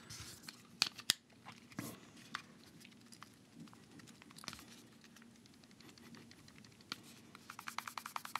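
Faint clicks and taps of hard plastic as a dotmod dotAIO Lite pod mod is handled. Near the end, a quick run of light clicks, about nine a second, as the device is shaken and its plastic side doors rattle slightly in their frame.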